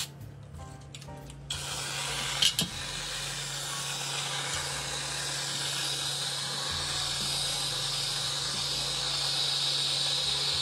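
Aerosol can of whipped cream spraying in one long, steady hiss that starts about a second and a half in, with a brief sharp click shortly after it begins. Background music plays underneath.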